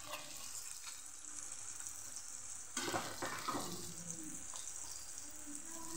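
Chopped onions and tomatoes sizzling softly in oil in a kadai. About three seconds in comes a brief louder burst with a few sharp knocks as a spoonful of garlic chutney paste goes into the pan.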